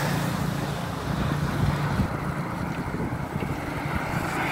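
Wind rushing and buffeting over a phone's microphone while riding a bicycle, with a steady low rumble underneath.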